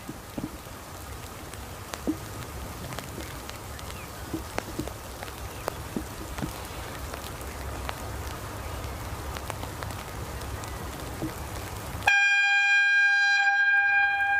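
Scattered raindrop ticks over a steady low wind rumble; then about twelve seconds in an approaching railbus's horn starts abruptly, a loud, long, steady single note that carries on to the end.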